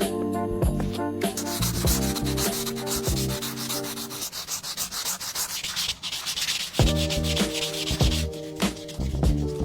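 Hand sanding: rapid back-and-forth rubbing strokes on a surface, starting about a second in and fading out near the end, over background music.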